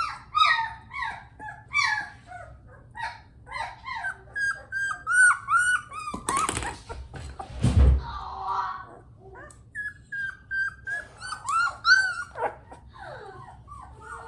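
Three-week-old Bernese Mountain Dog puppy whining and yelping over and over while being held until it sits still. About six to eight seconds in there is a short rustle and a low thump.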